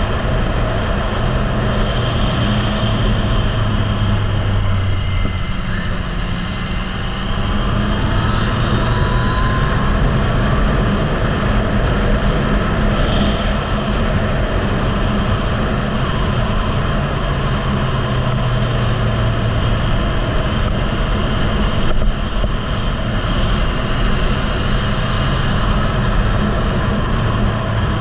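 Yamaha MT-09 three-cylinder motorcycle engine running at track speed under heavy wind noise on the microphone, the engine note rising and falling with the throttle.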